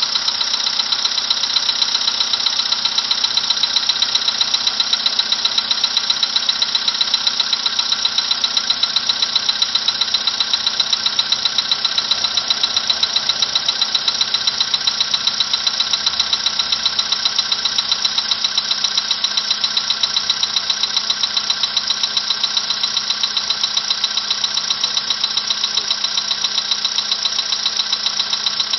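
Volkswagen engine idling with a fast, even knocking. The knock has come back in this engine.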